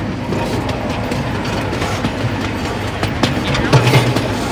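Small ride-on park train's open passenger cars rolling along with a steady rattle and clatter, with sharp clicks now and then.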